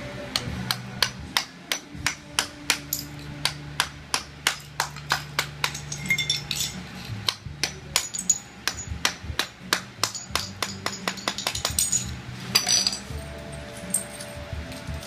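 Hammer striking a chisel to break up and pry off ceramic floor tile, a steady run of sharp metal-on-metal blows about three a second. The blows stop shortly before the end, followed by a brief louder clatter.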